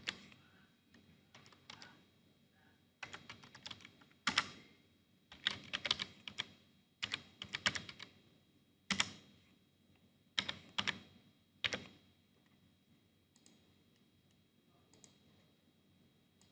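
Computer keyboard typing: short runs of keystrokes with pauses between them, thinning to a few scattered taps in the last few seconds.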